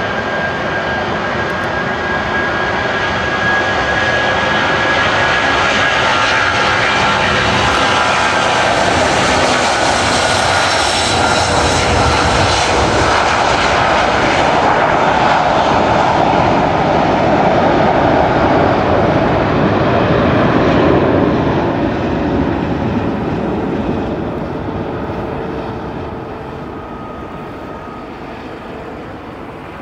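Boeing 747-400 freighter's four jet engines at takeoff power: a loud, steady jet roar with a high whine that slides slowly lower in pitch. The roar builds through the takeoff roll and liftoff, peaks, then fades over the last several seconds as the jet climbs away.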